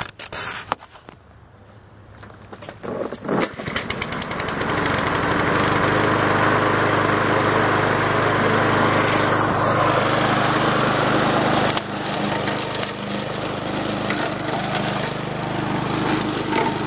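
Cub Cadet walk-behind lawn mower's small gasoline engine starting up about three seconds in and then running steadily. Near twelve seconds the sound dips and changes as the mower is pushed into the grass and cuts.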